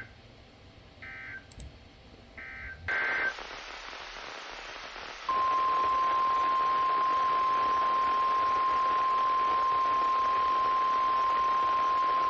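NOAA Weather Radio between messages: three short warbling data bursts, the SAME end-of-message code closing the previous warning, and then a fourth burst. Radio static hiss sets in about three seconds in. At about five seconds the steady 1050 Hz warning alarm tone begins and holds, loud and unbroken, signalling that a new warning follows.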